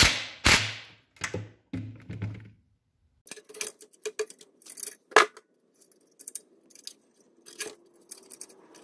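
Small metal clicks and clinks of return springs and the throttle linkage rod being hooked back onto a Predator 212cc engine with a hand tool, irregular and scattered, with a few louder knocks in the first two seconds.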